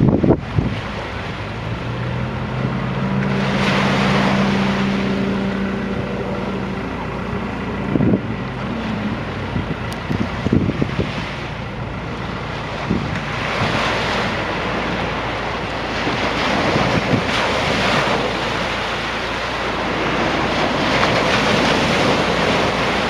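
Surf breaking and washing up the slipway, in several swelling surges, with wind buffeting the microphone. A low engine hum runs underneath in the first few seconds, then fades out.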